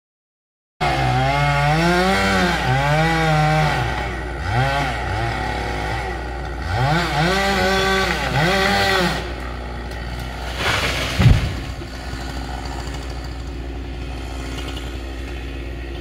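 Gasoline chainsaw revving up and down again and again, its pitch rising and falling with each squeeze of the throttle. After that it settles to a steadier, quieter running, with a single low thump a little after halfway through.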